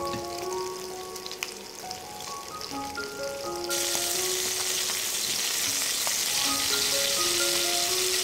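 Spotted snakehead (taki) fish shallow-frying in soybean oil over medium heat in a nonstick pan, a steady sizzle that gets louder about three and a half seconds in. A light background melody of single held notes plays over it.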